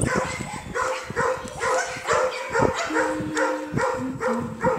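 Several dogs barking over one another, with short barks coming two or three a second.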